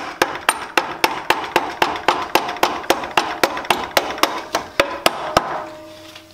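Rubber mallet tapping the end of a Jet JWL-1642EVS lathe spindle, about four quick, even blows a second, seating the spindle bearing in the headstock housing. The tapping stops a little over five seconds in.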